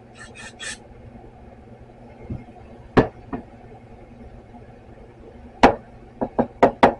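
Three short squirts of aerosol carburetor cleaner through its straw, cleaning a carburetor part. Then sharp knocks and clicks of the can and metal carburetor parts being set down and handled on the workbench, with a quick run of five or six near the end.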